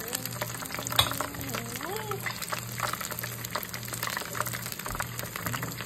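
Conch fritters deep-frying in hot oil in a pan: a steady sizzle with dense crackling pops. A short melody rises and falls over it in the first two seconds.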